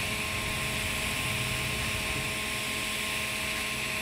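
TIG welding arc on carbon steel pipe hissing steadily during a fill pass with hand-fed filler wire, set at about 140 amps. A steady electrical hum runs beneath the hiss.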